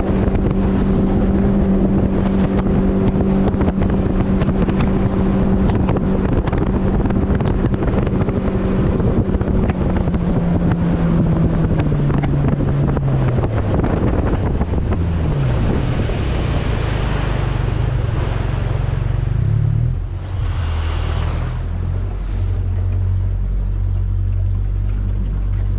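Mercury 80 Jet outboard on a jet boat running at steady speed, then throttled back: about ten seconds in its pitch falls over several seconds and it settles to a low idle. Water rushes and splashes as the boat comes off speed, with wind on the microphone.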